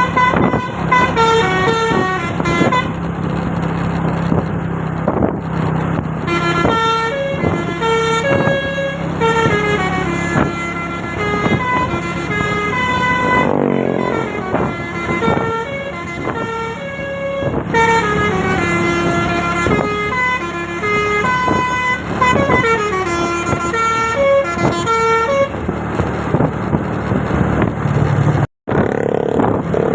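Bus telolet basuri horn playing quick, note-by-note melodies, with the bus's engine humming steadily underneath. The sound drops out for an instant near the end.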